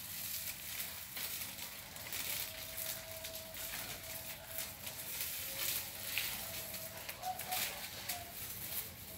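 Dogs and puppies chewing and smacking on snacks: irregular crackly clicks and crunches throughout.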